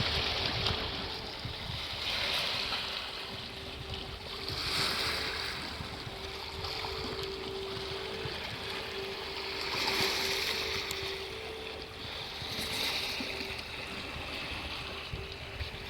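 Small sea waves breaking on a beach every few seconds, under a lighthouse foghorn sounding a steady low two-note tone.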